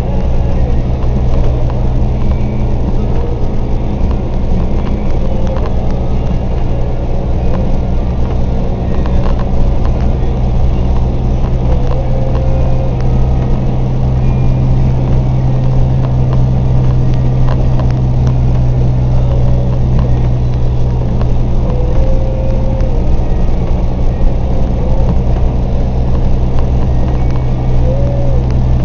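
Truck engine running steadily while driving, heard from inside the cab as a constant low hum.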